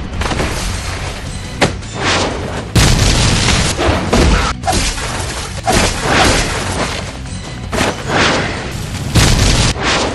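Movie fight sound effects: a run of heavy impacts and booms about every second or two, with deep rumble between them, over music.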